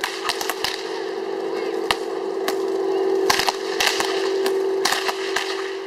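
Whips cracking sharply against spinning tops on stone paving, about a dozen lashes at irregular intervals, over a steady hum of several close tones.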